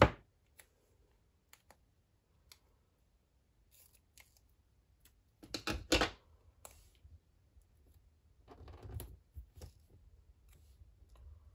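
Scissors cutting through double-sided foam mounting tape about six seconds in, the loudest sound, after a sharp click at the start and a few light ticks. Soft rustling of paper and tape near the end.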